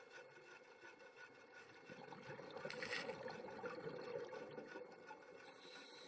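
Faint underwater ambience: a noise haze with a steady faint hum, swelling for about two seconds in the middle.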